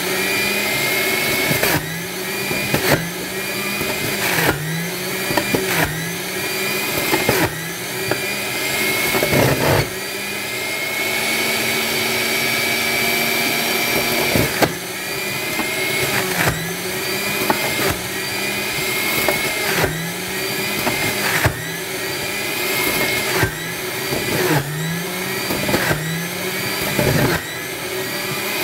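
Electric centrifugal juicer motor whining as it grinds beetroot. About every second and a half its pitch drops with a sharp knock as a piece is pushed into the spinning blade, then climbs back up. Midway it runs at a steady pitch for a few seconds with nothing being fed in.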